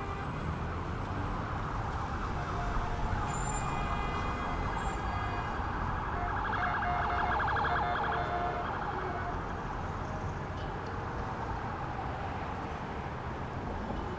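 City street ambience with a steady low traffic rumble, and an emergency-vehicle siren sounding in rapid pulses about six to eight seconds in.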